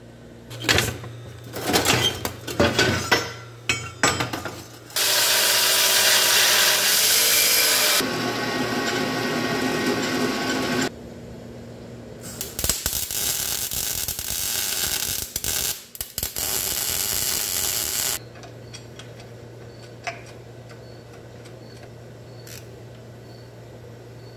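A handheld power tool running in two long bursts, after several knocks and clatters of metal tools. A low steady hum follows near the end.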